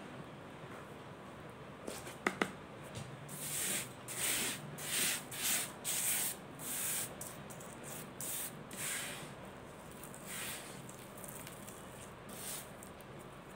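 Crushed mothball powder handled by hand: a couple of sharp clicks about two seconds in, then a series of short, gritty, hissing rustles, about one every half second, that thin out toward the end as the powder is pressed, scooped and let fall back onto the pile.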